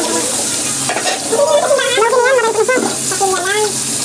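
Steady sizzling of food frying in hot oil, with a high voice over it in the middle.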